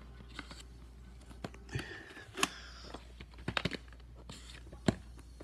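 A plastic VHS clamshell case and its paper inserts being handled: scattered clicks and taps of the plastic with paper rustling, a quick run of taps about three and a half seconds in and a sharper knock near the end.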